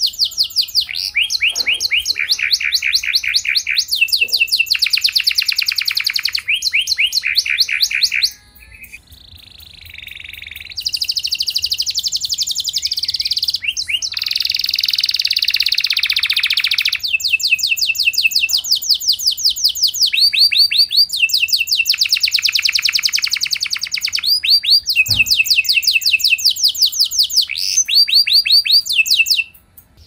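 Domestic canary singing: long, fast rolling trills, each run lasting one to three seconds, with a quieter stretch about eight seconds in and an unbroken warble a little later.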